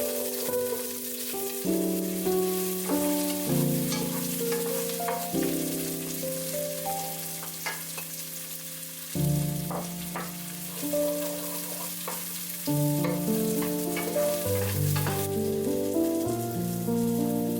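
Food sizzling in a cooking pot, with occasional sharp clicks from a utensil, under background music with a slow melody of held notes.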